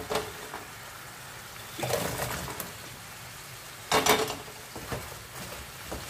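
Sauce sizzling steadily in a frying pan, with two louder splashing sizzles about two seconds in and about four seconds in as batches of fried turkey wings are tipped into the hot honey-butter sauce; the second is the loudest.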